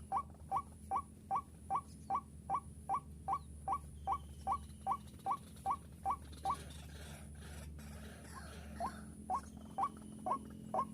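White-breasted waterhen (ruak-ruak) lure call: a short rising squeaky note repeated about two and a half times a second. It breaks off about two-thirds of the way through and resumes more slowly near the end.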